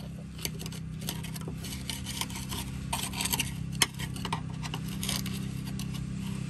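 Screwdriver blade scraping caked oily dirt off a car's subframe by the lower engine mount, in many short rough strokes with one sharper click midway, over a steady low hum.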